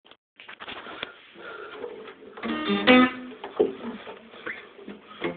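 Acoustic guitar playing a song's intro: single picked notes and strummed chords, the loudest strums about three seconds in.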